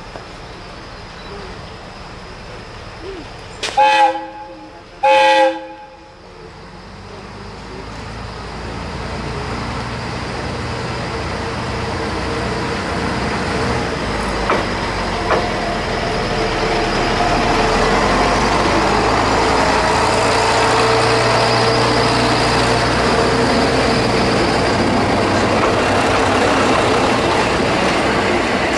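Tsugaru-21 diesel railcar sounds two short horn blasts about four seconds in, then its diesel engine runs and grows steadily louder as the railcar draws nearer, with a couple of clacks over the rails midway.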